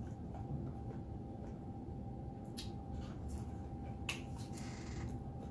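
Close-up mouth sounds of someone chewing a bacon and egg sandwich: a few sharp smacking clicks about two and a half, three and a half and four seconds in, over a steady low background noise.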